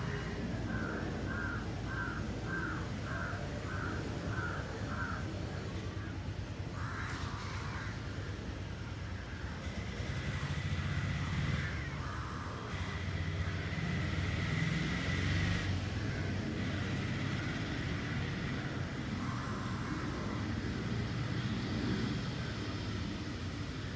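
A quick run of about eight short, evenly spaced animal cries in the first five seconds, with a few more scattered cries later, over a steady low rumble.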